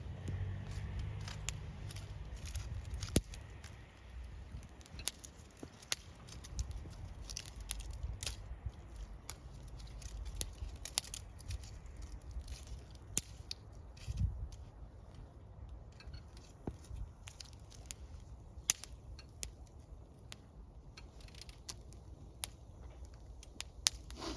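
Wood campfire burning, with many irregular sharp crackles and pops over a low, steady rumble.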